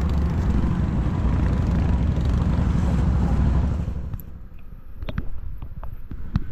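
Off-road vehicle engine running hard under load while towing a stuck ATV out of muskeg, dropping off sharply about four seconds in. A few sharp knocks follow near the end.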